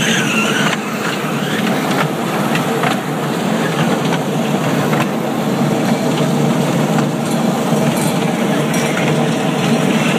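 Kids' ride-on mall train running steadily, heard from on board, with a few light clicks.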